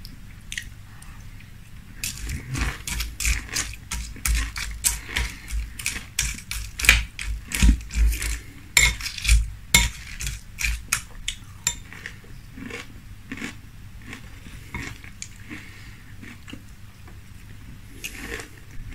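Close-up chewing of a mouthful of dulce de leche Zucaritas (sugar-frosted corn flakes) in milk: dense crisp crunching for about ten seconds that thins out into softer chewing. Near the end a metal spoon moves in the glass bowl.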